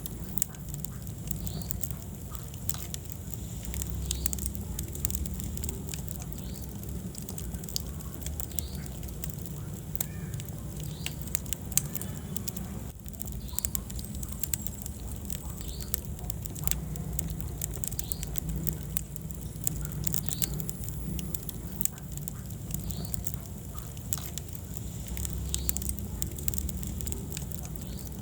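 Wood fire crackling in a fireplace: frequent sharp pops and snaps over a steady low rumble of the flames, with one louder pop about twelve seconds in.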